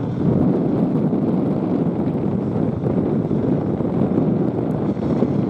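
Steady low rumble of a formation of Aero L-39 Albatros jet trainers taxiing, mixed with wind buffeting the microphone.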